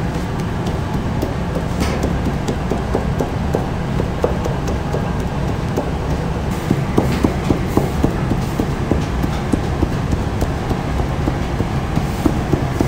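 A steady low rumble under many quick, light taps and scrapes as a plastic dough comb is pressed and dragged through barbari bread dough on a floured board. The taps come more often from about halfway through.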